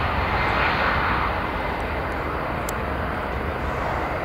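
Airbus A320-216's CFM56 turbofan engines running at takeoff thrust as the airliner rotates and lifts off. A steady, dense jet noise that eases slightly about a second in as the aircraft climbs away.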